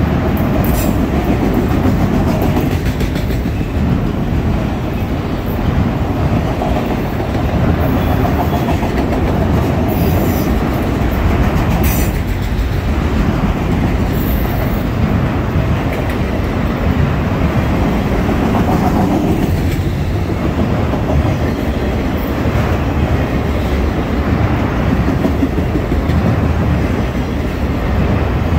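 Autorack freight cars rolling past close by: a loud, steady rumble of steel wheels on the rails, with a few brief high-pitched squeals between about ten and fifteen seconds in.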